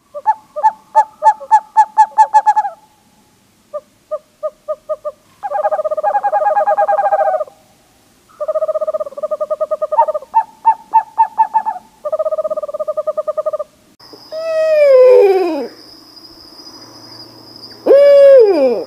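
A series of owl calls: groups of quick pulsed hoots and steady trembling trills, broken by short pauses. In the last few seconds come longer calls that rise briefly and then fall away in pitch, with a steady high tone behind them.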